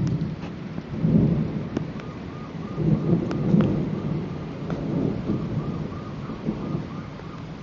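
Thunder rumbling in several rolling surges over steady rain, with a few sharp crackles.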